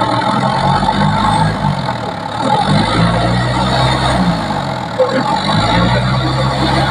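Engine of a teak-log hauling machine running and working, its speed rising and falling a few times.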